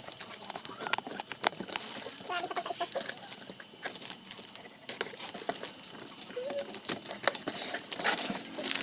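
Packaging and parts of a 12 V DC ceiling fan being handled during unboxing: scattered clicks, knocks and rustles, with a few short faint calls in the background.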